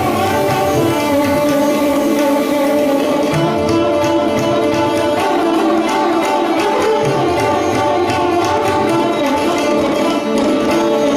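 Background music in Indian classical style: sitar with tabla keeping a steady beat.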